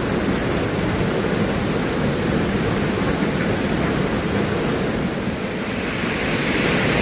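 Waterfall rushing: a steady, fairly loud roar of falling water.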